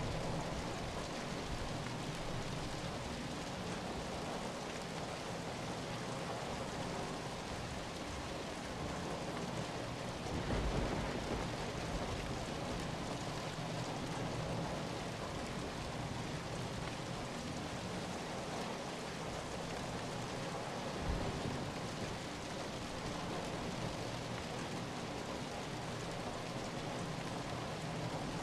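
Steady, even rain falling, a dense wash of drops with no pauses. About ten seconds in there is a brief low rumble, and later a short low thump.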